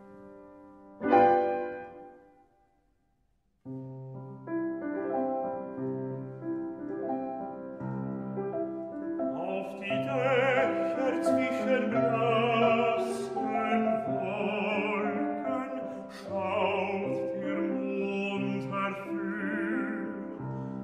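Art song for baritone and piano. The piano plays a loud chord about a second in that dies away, then a short silence. The piano starts again, and about ten seconds in a baritone begins singing in German with vibrato over the piano accompaniment.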